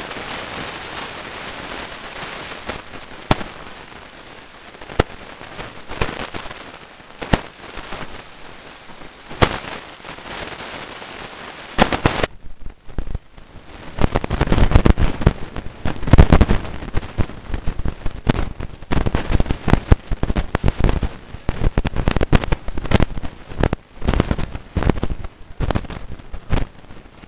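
Steady rain hiss with sharp pops every second or two. From about twelve seconds in, loud irregular knocks and rubbing take over as the camera is moved and handled.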